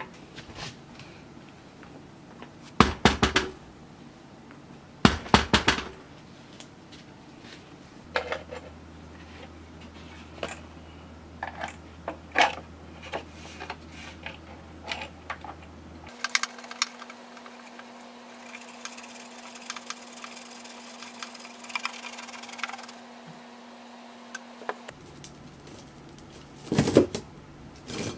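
Hand-assembly noises on a motorcycle: scattered clicks, taps and knocks of metal parts and hand tools being fitted. There are short bursts of louder clatter a few seconds in, about five seconds in and near the end.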